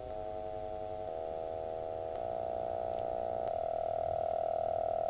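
Small woofer in a homemade PVC-pipe Bluetooth subwoofer playing low bass test tones from a phone app. It is heard as a steady, pulsing hum rich in overtones that changes three times as new frequencies are selected, growing slightly louder.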